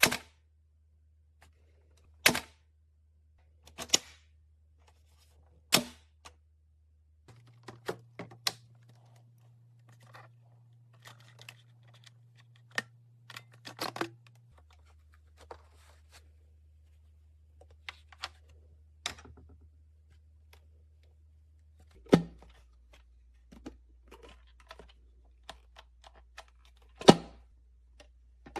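Scattered sharp clicks and knocks of hard objects being handled, with a few louder knocks spaced seconds apart, over a faint low hum. No vacuum motor is running.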